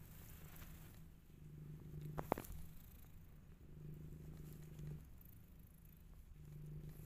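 Cat purring close up, a low steady purr that swells and eases in a slow cycle of about two and a half seconds with its breathing. A short sharp click comes a little over two seconds in.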